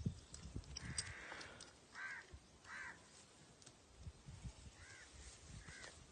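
A crow cawing four times: two caws about two seconds in, then two fainter ones near the end, with faint low knocks underneath.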